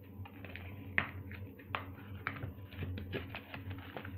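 Foil booster pack wrappers crinkling and rustling as they are handled: a run of short, irregular crisp rustles and clicks, the sharpest about a second in, over a steady low hum.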